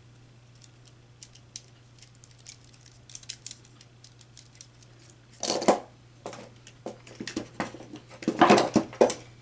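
Plastic parts of a magnetic contactor handled and clicked together with light taps, then louder clatters as the pieces are set down on a wooden workbench, about halfway through and again near the end. A steady low hum runs underneath.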